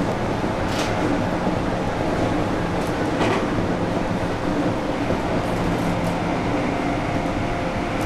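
JR 221 series electric train running, heard from inside the front car: steady rolling noise with a motor hum. Two brief high-pitched noises come in the first half.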